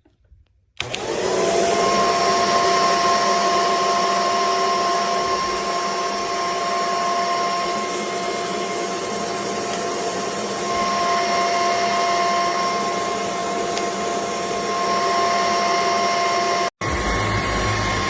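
Upright vacuum cleaner switched on about a second in, its motor spinning up within a moment to a steady whine over a rush of air. Near the end it drops out for an instant and comes back with a deeper hum underneath.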